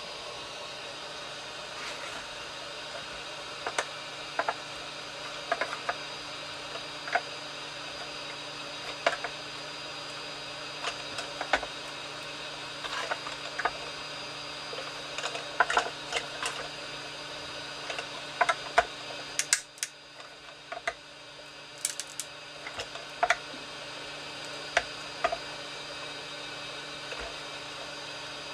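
Steady whir of a small hot-air heat pen's fan running, with scattered small clicks and ticks of hard plastic being handled and warmed. The whir drops away briefly about two-thirds of the way through, then returns.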